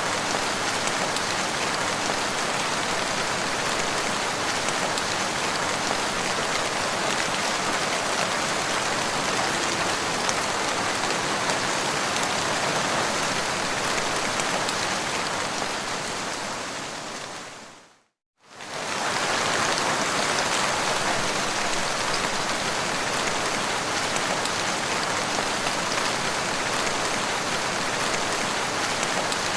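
Steady rain falling on the ground, an even hiss of drops. About two-thirds of the way through it fades out to silence and comes back within a second.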